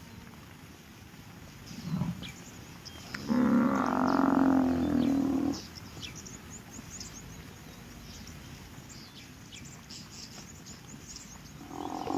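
Big cat roaring: one long roar of about two seconds a few seconds in, and another starting near the end, with faint high chirps in between.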